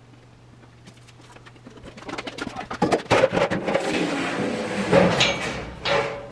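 A large thin steel sheet being handled and laid across sawhorses, flexing and rattling with clanks and knocks. A brief metallic ring comes about five seconds in. The handling starts about two seconds in, after a low steady hum.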